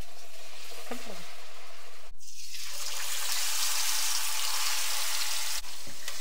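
Hot oil sizzling steadily as food deep-fries in a pan, with two very brief breaks in the sound.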